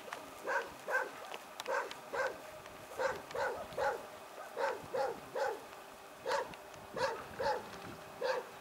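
German Shepherd dog barking repeatedly, short barks in quick runs of two or three.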